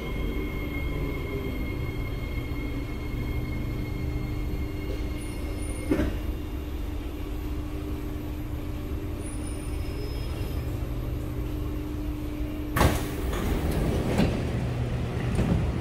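SMRT C751B metro car heard from inside as it comes to a stop at a platform: a steady rumble with a motor whine that cuts off with a short knock about six seconds in. The hum runs on until a sharp, loud burst of noise about thirteen seconds in as the sliding doors open.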